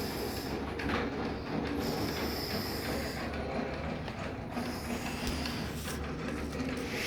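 A man snoring in his sleep, the sound swelling and fading about every two and a half seconds over steady background noise.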